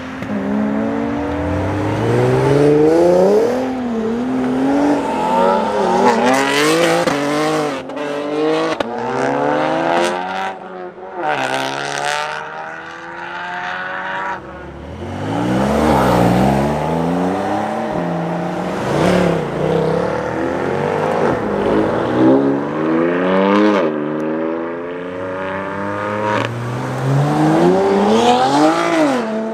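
A series of sports cars accelerating hard past, one after another, their engines revving up and dropping back as they shift, with the engine notes climbing and falling again and again.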